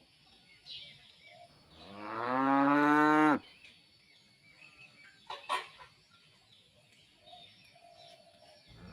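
A cow mooing once, one long call of about a second and a half starting a couple of seconds in, with a couple of short knocks about halfway through and another moo beginning right at the end.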